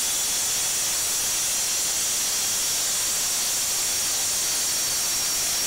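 Plunge track saw on a guide rail cutting through a sheet of V-grooved, water-resistant MDF, with a steady, even hiss throughout.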